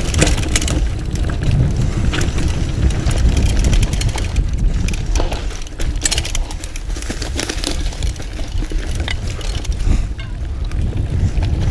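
Mountain bike ridden over a dirt forest trail: a steady low rumble with frequent clicks and rattles from the bike and its tyres.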